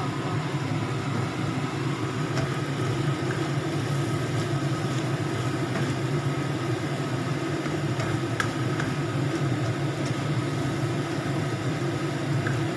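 A steady low machine hum runs under tomato sambal simmering and sizzling in a non-stick wok, with a few light scrapes of the spatula against the pan.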